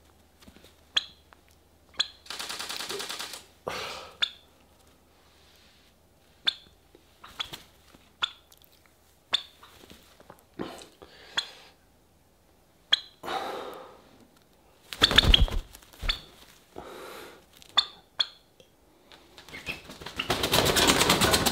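A young turkey flapping its wings in several short bursts, the loudest near the end, with brief sharp clicks scattered between the flaps.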